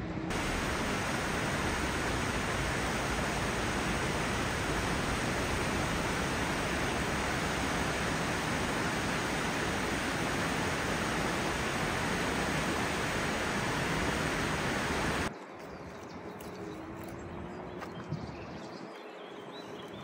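Fast-flowing mountain river rushing over rocks: a steady, even wash of water noise that cuts off abruptly about fifteen seconds in. After it comes a quieter outdoor ambience with a few faint clicks.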